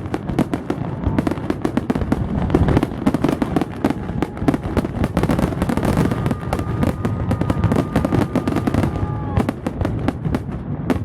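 Fireworks finale: a dense, continuous barrage of aerial shell bursts and crackles, too quick to count. A steady two-note tone is held for about three seconds past the middle and dips at its end.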